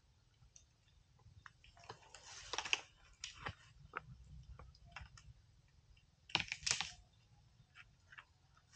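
Irregular crackling, snapping and crunching of twigs and dry vegetation as an Asian elephant feeds, with louder crunchy bursts about two and a half seconds in and again about two-thirds of the way through.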